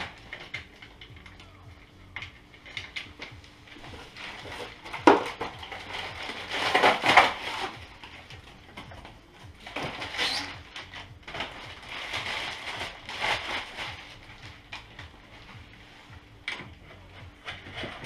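Rustling, scraping and knocking as a new bicycle is taken out of its shop packaging, with a sharp knock about five seconds in.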